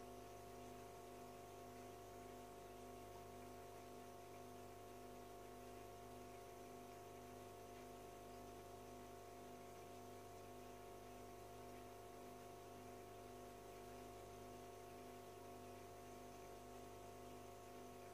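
Faint, steady hum of a running aquarium filter pump, made of several held tones that do not change.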